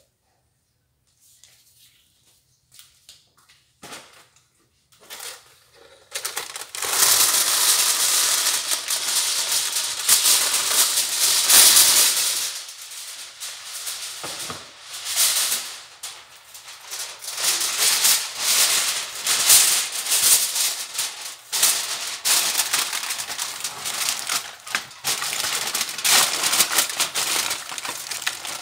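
Aluminium foil pulled from its roll and crinkled as it is wrapped around a pork leg: a loud, dense crackling that starts about six seconds in, after a few faint clicks.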